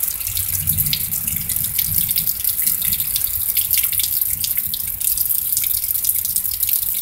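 Rain falling during a thunderstorm, with many close drips ticking over a steady hiss and a low rumble in the first couple of seconds.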